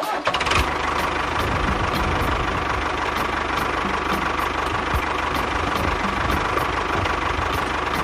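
A small engine running steadily at idle, with faint regular ticks about three times a second.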